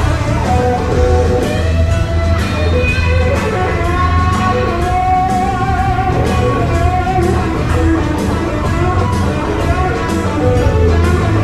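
Electric blues band playing: a lead electric guitar with wavering, bent notes over drums and a steady bass line.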